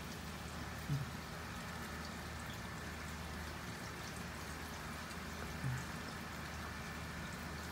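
Steady rain falling in a thunderstorm, an even patter, with two brief low thumps, one about a second in and one near six seconds.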